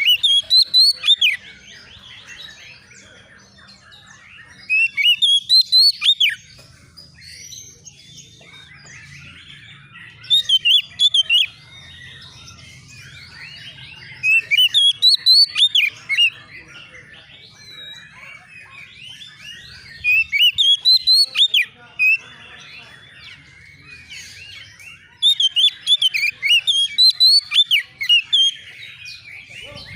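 Oriental magpie-robin (kacer) singing loud bursts of rapid, varied whistled notes. The bursts come in phrases of one to three seconds, about every four to five seconds, over a faint low hum.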